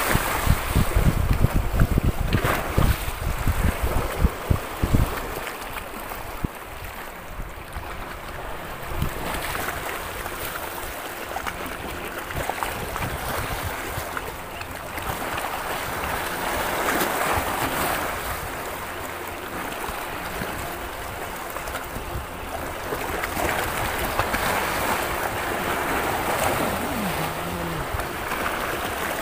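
Choppy sea water washing and slapping beside a boat, swelling and easing every few seconds. Wind buffets the microphone with low rumbling thumps for the first few seconds.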